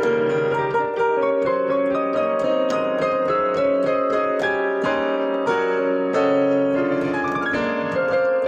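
Digital piano playing a solo piece: a quick stream of plucky notes over sustained chords in the middle register.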